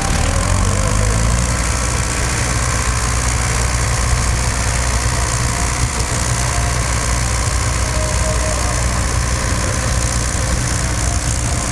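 Vintage farm tractor's engine running at a steady, even note while it drags a weight-transfer pulling sled.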